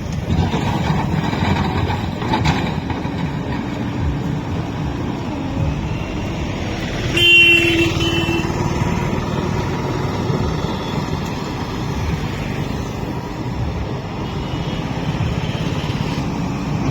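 Diesel engine of a JCB 3DX backhoe loader running steadily while it digs soil. A horn sounds once, for about a second, roughly halfway through, and is the loudest moment.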